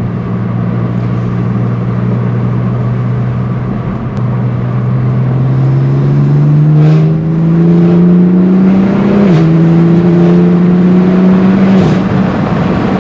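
BMW M4 F82's S55 twin-turbo straight-six with a REMUS exhaust, heard inside the cabin on the move: running steadily at first, then accelerating with its pitch climbing. The pitch dips briefly about nine seconds in and drops again near the end, as it goes up through the gears.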